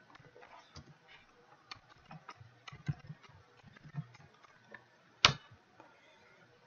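Computer keyboard keys clicking irregularly as commands are typed, with one much louder keystroke a little past halfway.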